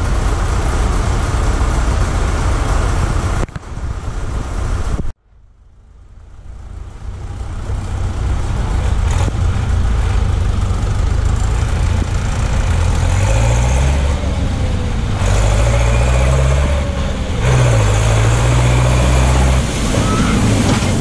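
A tractor's diesel engine drawing near, its note rising and falling several times with the throttle, then water splashing as it drives through the ford near the end. Before that, a steady rush of noise cuts out about five seconds in and fades back up.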